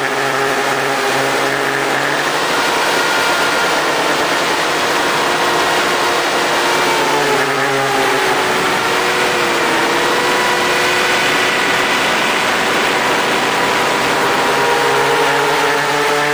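FPV racing quadcopter's brushless motors and propellers whining, heard from the camera mounted on the drone. Several tones slide up and down together as the throttle changes, over a steady rush of prop wash and wind.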